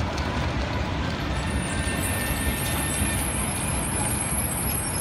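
Articulated electric tram rolling slowly past at close range: a steady low rumble of steel wheels on the rails, with a thin high whine joining in about two seconds in.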